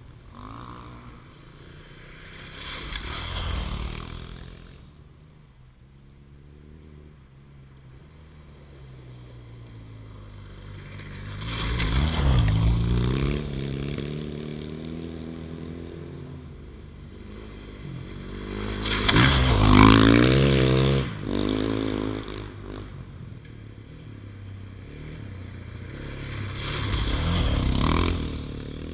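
Rally motorcycles passing one by one through a shallow creek crossing on a gravel road, four passes in turn. Each engine swells up with revving as the bike comes through, then fades off, with water and gravel noise; the loudest pass is about two-thirds in.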